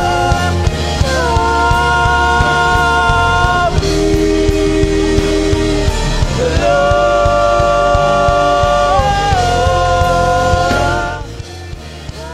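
Church worship music with singing: held chords that shift every two to three seconds over a steady drum beat. The music drops noticeably quieter about eleven seconds in.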